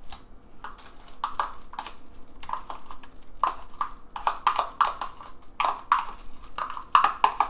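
A metal spoon knocking and scraping against a small plastic tub, scooping out minced garlic. It makes a quick, irregular run of sharp clicks and taps, growing busier toward the end.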